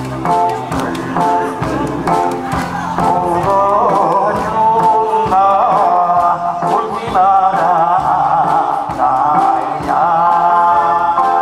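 A man sings a Korean trot song into a microphone over amplified backing music with a steady beat.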